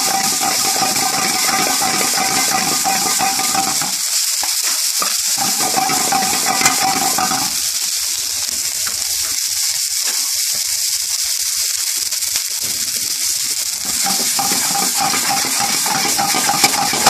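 Spinach sizzling in hot oil and ghee in a frying pan, a steady high hiss, with a metal spatula scraping and stirring against the pan.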